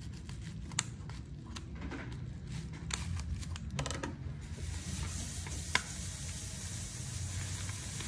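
Scissors snipping and crinkling a black plastic parcel wrapping, with scattered sharp clicks and crackles. A sharp clack comes a little after halfway, and a steady hiss sets in about halfway through.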